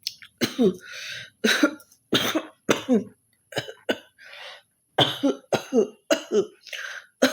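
A person coughing over and over, about ten forced coughs each ending in a voiced, falling 'huh', with raspy throat-clearing breaths between them: deliberate, staged coughing and hawking.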